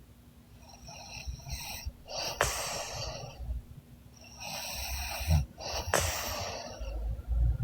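A young woman snoring heavily in deep sleep: a few slow, noisy breaths with a low snore, and a couple of sharp clicks.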